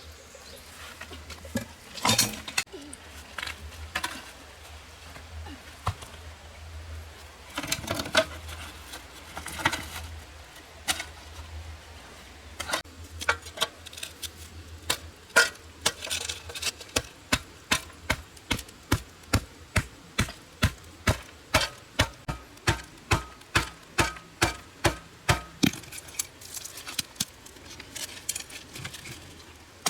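A series of sharp knocks, scattered at first and then about two a second in a steady rhythm from about halfway in, with a low steady hum that fades out near the middle.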